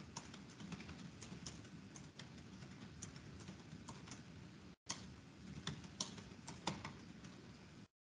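Faint, irregular key clicks of someone typing on a computer keyboard. The sound cuts out to silence briefly about five seconds in and again near the end.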